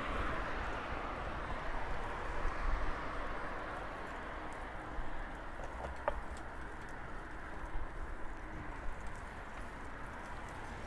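Steady rushing noise of riding a bicycle: wind on the microphone and tyres on the pavement, with a low rumble and a few faint clicks.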